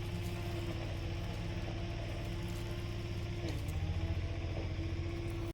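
An engine running steadily at idle, a low even hum with a held tone above it.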